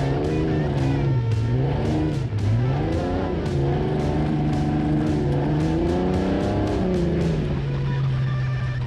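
An off-road race vehicle's engine revving up and down repeatedly, its pitch rising and falling as it works through rough ground, with background music with a steady beat.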